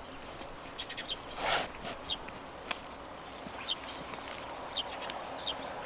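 A bird calling with short, high, falling chirps, repeated every second or so, over the rustle of fabric as a stuff sack is handled and its drawstring pulled.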